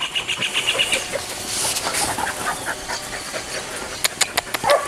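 A small bird's quick chirping trill in the first second, then outdoor noise with scattered clicks and rustles. A dog starts yelping and whining near the end.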